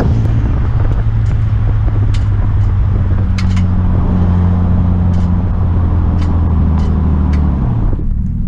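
Car engine running steadily under way, with scattered light clunks and knocks over it; the clunks are typical of a loose pad bouncing, as the driver suspects. Near the end the engine note drops as the car slows.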